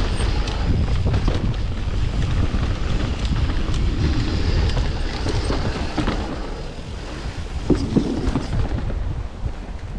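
Mountain bike riding over a slick, muddy dirt trail: wind buffeting the microphone in a steady low rumble, with frequent small knocks and rattles from the bike over the rough ground.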